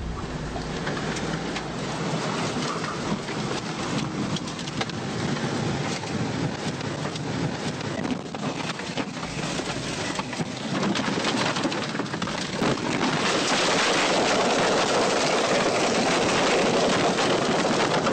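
Tornado winds and driving rain rushing against a building, with many sharp knocks and clatters through it. The noise swells about twelve seconds in and stays loud.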